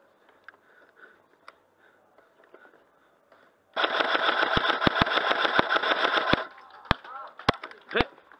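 Airsoft rifle firing a long full-auto burst of about two and a half seconds, starting a little before halfway, followed by three single sharp cracks.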